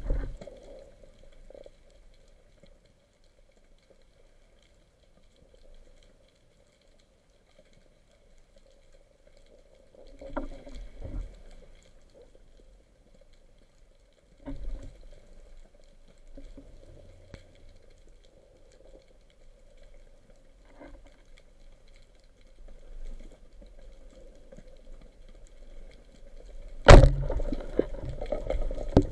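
Underwater, a long quiet stretch with a few brief scuffling noises, then about 27 seconds in a band speargun fires with a sharp crack, followed by louder rushing noise as the shaft and shooting line run out.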